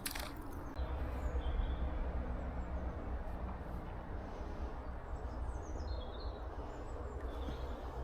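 Steady outdoor riverside noise: running river water with a low wind rumble on the microphone, and a few short bird chirps.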